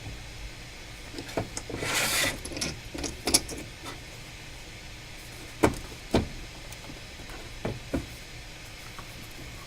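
Handling sounds at a repair bench: a brief hiss about two seconds in, then a few sharp clicks and taps spread out, over a steady low hum.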